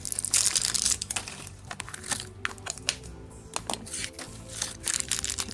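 Toy packaging crinkling and tearing in a run of crackles and clicks, loudest in the first second, as a blind-packed ornament is unwrapped. Soft background music plays underneath.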